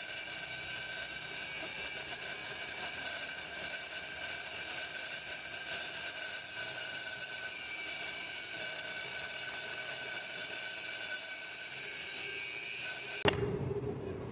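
Angle grinder with a thin cut-off disc cutting through steel plate: a steady high whine over a grinding hiss. Near the end the whine stops with a sharp knock, and a lower, rougher noise follows.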